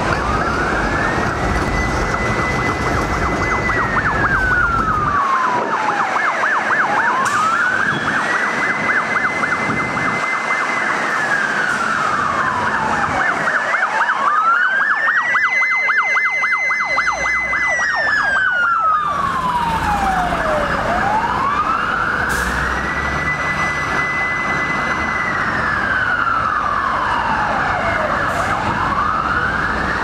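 Fire truck siren on a slow wail, rising, holding at its top pitch for a couple of seconds, then falling, about every seven seconds, four times over. Traffic runs underneath, and the siren is strongest about halfway through, as the truck comes closest.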